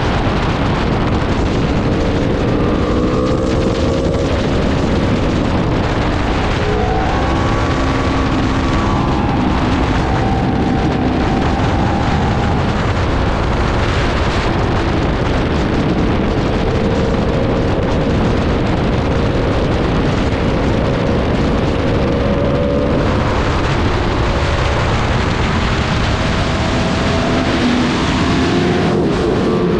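Sport-bike engine at speed, its pitch rising and falling several times as it revs through the gears, under heavy wind noise on the microphone.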